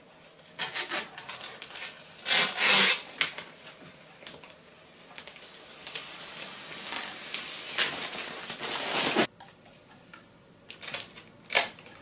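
Clear protective plastic film being peeled off the glass panel of a PC case, crackling and crinkling in irregular bursts. The loudest stretch comes about two to three seconds in. The sound breaks off suddenly about nine seconds in, followed by a few faint crackles and one sharp crack near the end.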